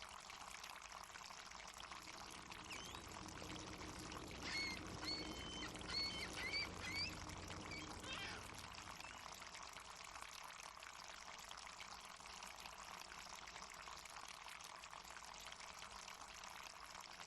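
Harbour ambience: a steady wash of water, with a short run of seagull calls about four to seven seconds in.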